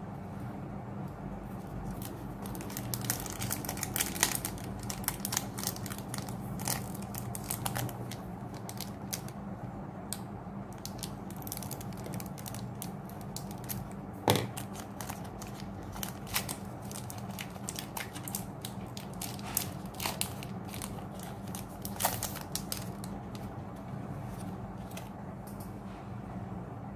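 Foil Pokémon booster pack wrapper crinkling and crackling as it is handled and opened, with trading cards clicking and sliding against each other; one sharper click about fourteen seconds in. A steady low hum underneath.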